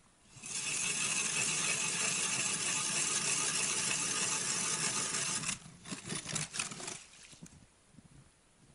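Hand ice auger drilling through river ice, a steady grinding and crunching of the blades for about five seconds. It stops abruptly and is followed by a few short scrapes.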